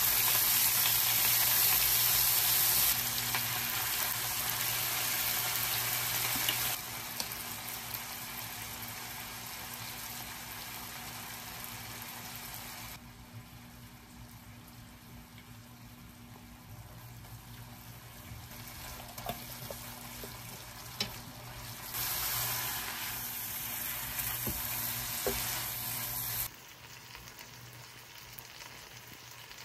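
Stir-fry sizzling in a nonstick frying pan as bean sprouts, bok choy and sliced meat fry and are stirred with a spoon, with a few light scrapes and clicks. The sizzle drops quieter about halfway through, comes back loud for a few seconds, then drops again, over a steady low hum.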